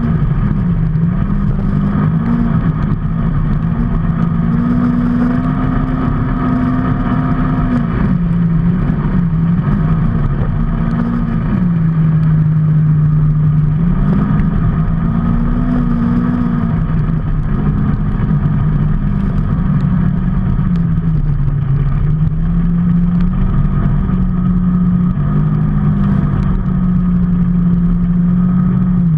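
Vehicle engine running under way over a steady low road rumble. Its note rises and falls several times as speed and throttle change.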